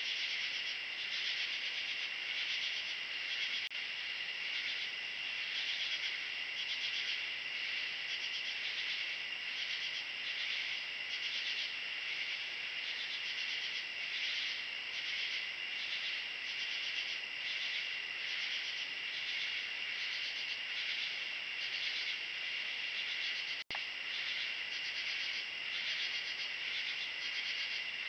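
Night chorus of insects: a steady, high trill with a fast, even pulsing running through it. It cuts out for an instant about three-quarters of the way through.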